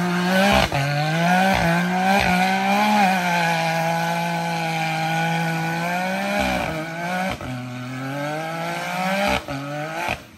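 Can-Am Maverick X3 UTV's turbocharged three-cylinder engine running under throttle, its pitch rising and falling as it is driven, holding steady through the middle, with several brief dips where the throttle is momentarily let off.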